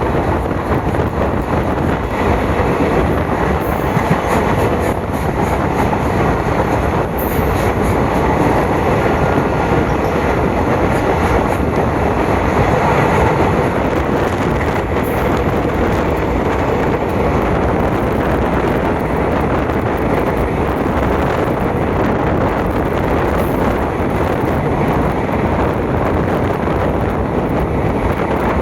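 A passenger train running along the track, with a steady rumble and rattle of wheels and carriages and a few light clicks.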